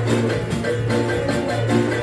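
Loud Latin dance music with a steady beat and quick repeated notes.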